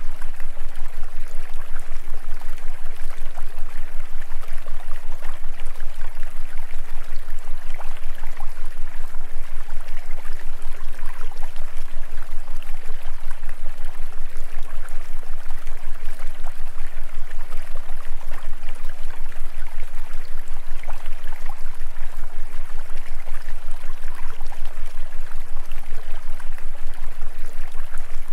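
Steady stream-like rushing of flowing water over a constant low hum, with a fast, even pulsing in loudness.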